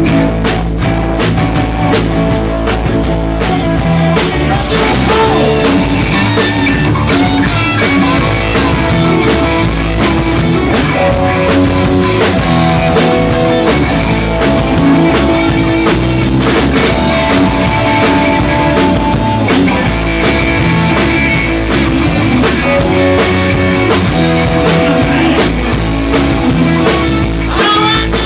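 Rock band playing live: guitar over a drum kit keeping a steady beat.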